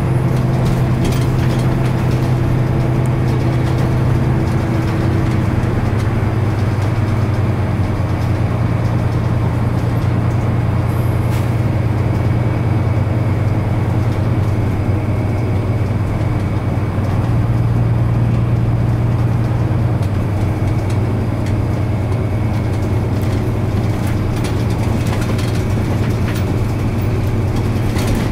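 Mitsubishi Fuso Aero Star (KL-MP37JK) city bus heard from inside the cabin while driving: a steady low diesel engine drone with road and tyre noise, the engine kept at low revs.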